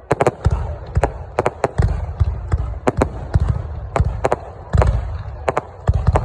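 Fireworks going off: an irregular run of sharp bangs, several a second, with deep booms underneath.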